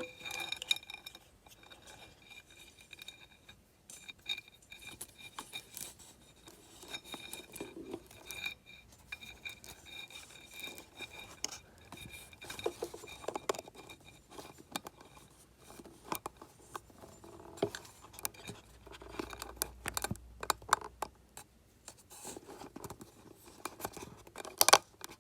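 Scattered light clicks, taps and scraping of wiring connectors and plastic motorcycle tail-section parts being handled, as turn-signal wires are fed through rubber grommets, with one sharper click near the end.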